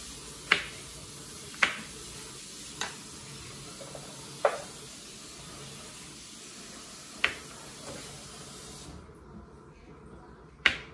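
Kitchen faucet running steadily into a bowl at the sink as shrimp are rinsed, shut off about nine seconds in. A knife knocks on a plastic cutting board several times as vegetables are cut.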